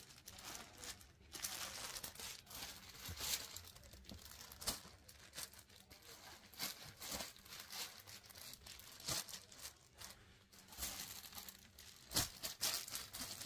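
Faint rustling and swishing of folded sarees being handled and laid down one after another, in short irregular bursts with light taps as the cloth lands.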